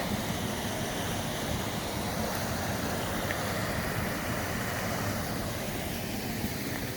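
Steady rushing of water from a river or waterfall, an even hiss with no breaks.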